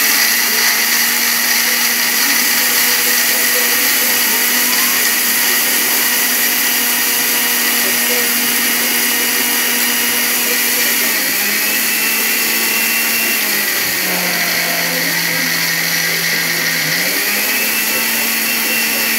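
Sujata mixer grinder running at speed, grinding dry red chillies in its steel grinder jar: a steady, loud motor whine. About two-thirds of the way through, its pitch drops for a few seconds, then climbs back up.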